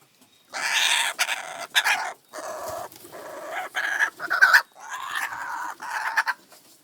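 Laughing kookaburras calling: a loud, harsh cackling chorus in repeated bursts, starting about half a second in and stopping shortly before the end.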